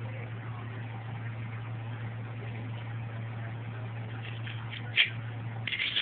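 A steady low hum, with one sharp knock about five seconds in and brief scratchy scuffling near the end.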